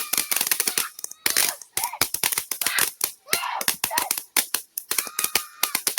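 Consumer fireworks crackling: a rapid, irregular string of sharp pops, several a second.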